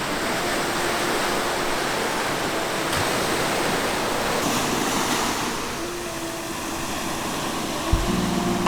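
Baltic Sea waves breaking on the shore: a steady, rushing wash of surf. Near the end a low steady tone comes in with a thump.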